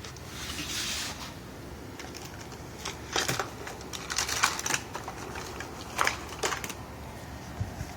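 Hands handling a length of wire and tools: scattered sharp clicks and rustles about three, four and a half, and six seconds in.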